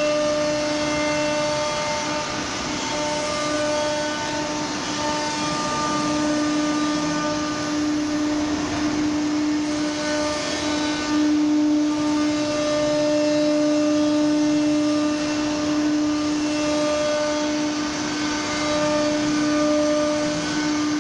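ATC CNC router spindle running with a steady high whine while machining a wood-based panel, over a constant rushing mechanical noise.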